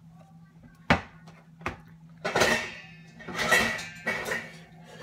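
Kitchenware being handled: a sharp knock about a second in, a lighter one after it, then two longer rattling clatters of dishes or utensils being moved about. A low steady hum runs underneath.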